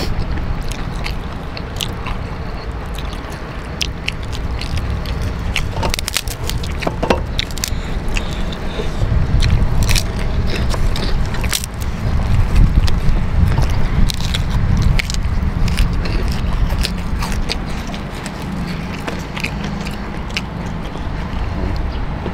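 Crunching and chewing of round white kerupuk crackers being broken by hand and eaten, with many short, sharp crackles scattered throughout. Under it runs a steady low rumble.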